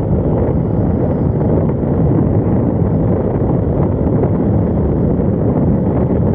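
Wind buffeting the microphone of a moving motorcycle: a loud, steady, low rushing noise that masks the engine.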